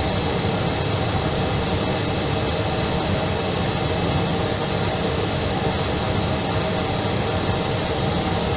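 Steady drone of an Airbus airliner in flight: jet engines and airflow, an even rushing noise with faint steady tones, unchanging throughout.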